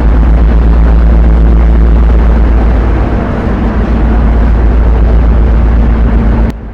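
Penang ferry's engines running with a loud, steady low drone and hum, heard from inside the ship's steel deck. It cuts off suddenly near the end.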